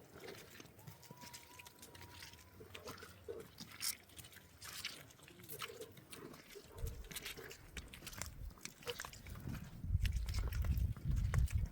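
Faint livestock calls among scattered small clicks, with a low rumble that grows stronger in the last couple of seconds.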